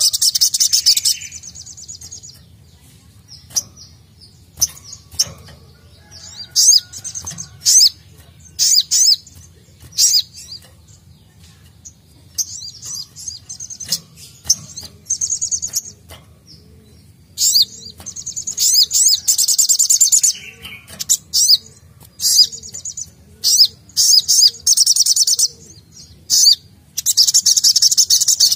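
Caged sunbird (sogok ontong, 'sogon') singing in bursts of rapid, high-pitched twittering trills with short chirps between them, louder and denser at the start and near the end.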